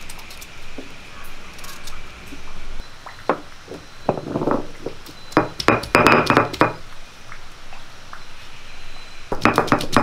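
Stone roller crushing garlic cloves on a flat black grinding stone: two bouts of rapid crunching, grinding strokes, one about four seconds in and another near the end.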